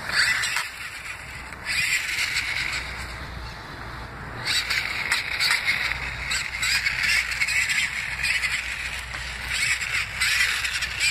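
Small electric motor and gearbox of a toy RC monster truck buzzing in stretches of a few seconds as it drives over mulch and dry leaves, with short clicks and crackles from the ground under the tyres.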